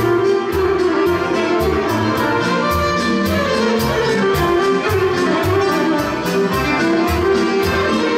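Dance music: a melody over a steady, fast beat of about four strikes a second, with a pulsing bass line.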